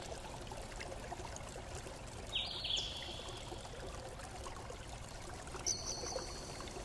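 Steady faint hiss of background noise, with two short high-pitched tones, one about two and a half seconds in and one just before six seconds.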